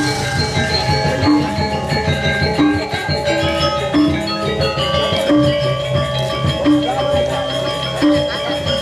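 Balinese gamelan music: dense interlocking metallophone tones over a low note struck at an even pace a little over once a second.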